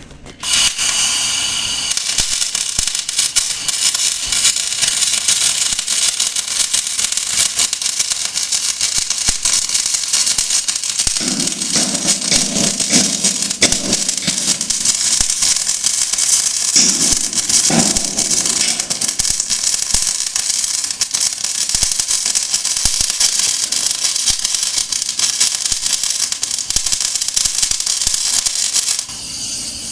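CO2 MIG welding arc crackling and hissing steadily. It strikes suddenly about half a second in and cuts off about a second before the end.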